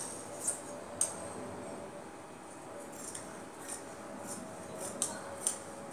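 Scissors cutting through cotton-like lining fabric: a scattering of short, crisp snips at irregular intervals.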